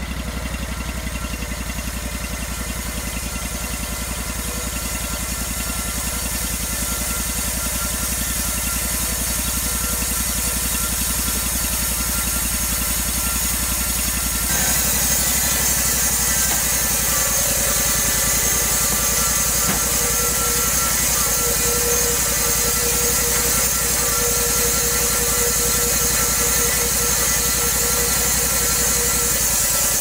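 Petrol engine of a portable band sawmill running steadily while its band blade saws Eastern White Cedar. About halfway through the sound steps up louder, with more hiss.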